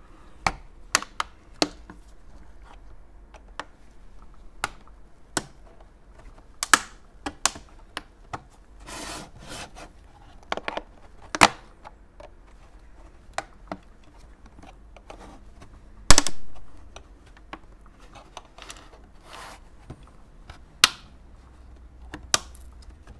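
Irregular clicks, taps and short scrapes of a hard plastic modem casing being handled and turned over by gloved hands. One sharp snap about two-thirds of the way through is the loudest sound.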